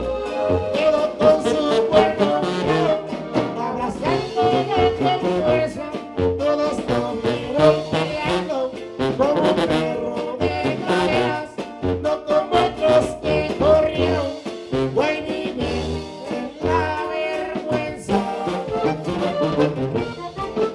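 A live corrido group playing: accordion lead over a bouncing tuba bass line, with guitar.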